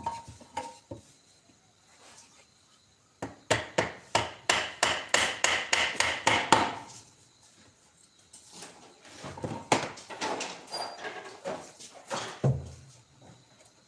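Hammer tapping on a wooden workpiece: a quick run of light strikes, about five a second, starting about three seconds in and lasting some three seconds, then softer, scattered taps.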